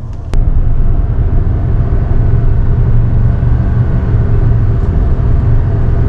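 Loud, steady low rumble of road and engine noise inside a moving car's cabin. It starts abruptly with a click about a third of a second in.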